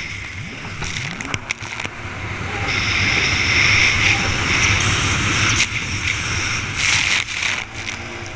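Stand-up jet ski running flat out over choppy water: its engine whines high, swelling and edging up in pitch from about three seconds in, with the hull slapping the chop and spray hissing around it.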